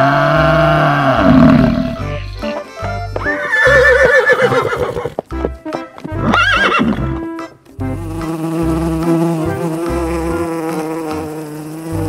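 A horse neighing, whinny calls that rise and waver in pitch around the middle. Before it, a deep bellowing call from a water buffalo. From about eight seconds, honeybees give a steady buzz. A low, regular music beat runs underneath throughout.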